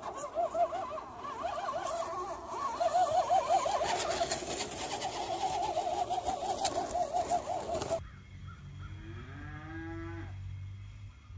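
A fast-wavering, warbling pitched sound with scattered clicks. About eight seconds in, a cow moos once in a long rising call.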